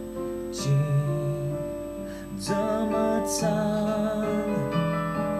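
Piano ballad accompaniment played on a keyboard piano, chords changing under a man's voice singing long, wavering held notes, with a few short breathy sounds between phrases.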